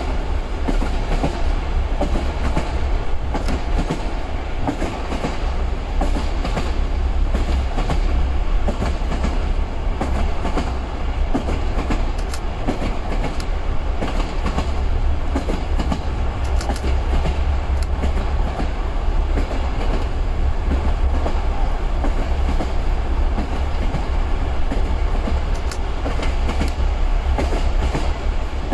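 Steady rumble and rattle of a moving vehicle, with a strong low drone and irregular clicks and knocks throughout.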